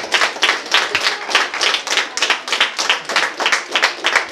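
A roomful of people clapping: many quick, uneven hand claps overlapping as applause.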